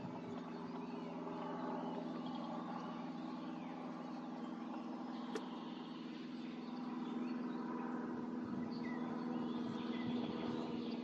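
A steady low mechanical hum, slowly getting a little louder, with faint bird chirps over it and one sharp click about five seconds in.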